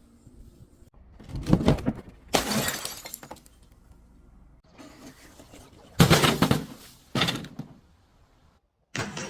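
Glass bottles being crushed and shattering in several separate crunching bursts, the loudest about six seconds in.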